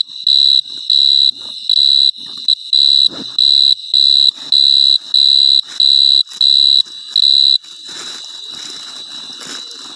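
An insect's loud, shrill call: a piercing high tone pulsing about one and a half times a second, settling after about seven and a half seconds into a steadier, weaker tone under rustling.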